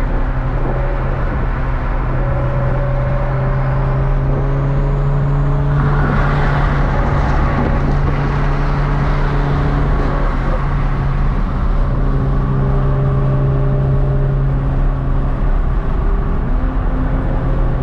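Car engine droning steadily while cruising, with road and wind noise; the rush of noise grows louder for a few seconds about six seconds in.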